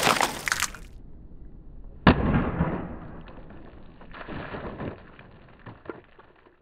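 A saber slashing through a row of water-filled plastic bottles: a sharp burst of bottles bursting and water splashing at the start. A second, duller impact with splashing follows about two seconds in, then a weaker splash around four seconds and a few scattered ticks as it dies away.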